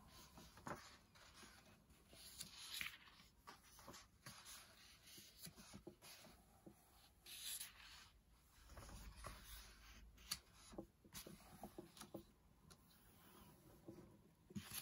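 Faint rustling and soft taps of paper as pages of a paperback colouring book are handled and turned.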